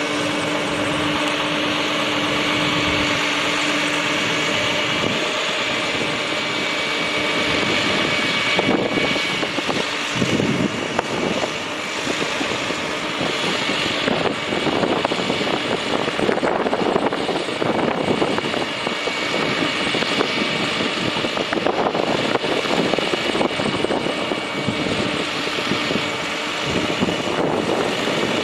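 International DT466 7.6 L inline-six turbo diesel engine of a bucket truck running steadily.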